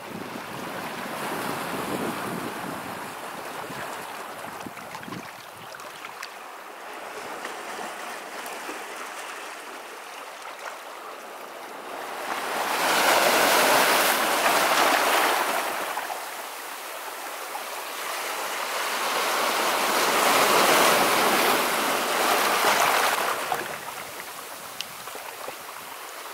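Strong seaside wind with the sea behind it: a steady rushing that swells twice into loud surges of a few seconds each, about halfway in and again near the end.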